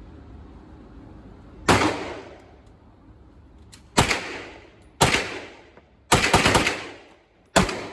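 Firearm shots at a shooting range: three single shots a second or more apart, then a quick string of about four, then one more near the end, each with a short echoing tail.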